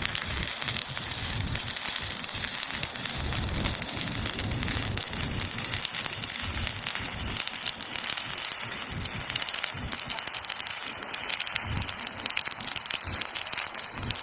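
Stick (shielded metal arc) welding with a 6013 electrode: the arc burns with a steady crackling sizzle.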